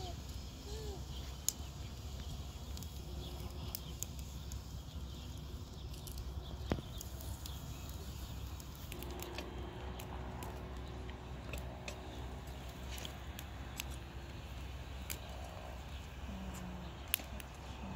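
Small knives peeling potatoes by hand: faint scraping, with a few sharp clicks. A low, steady rumble runs underneath.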